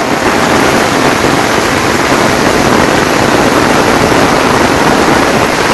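Heavy rain pouring down, a steady loud hiss of a downpour on leaves and fields.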